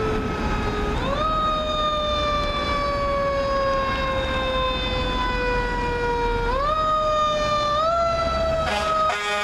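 Fire engine's Federal Q mechanical siren wailing. Its pitch jumps up quickly as the siren is wound up again, then slowly sags, and this happens three times. An air horn blast starts just before the end.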